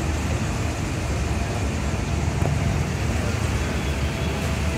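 Steady low rumble of motor vehicles.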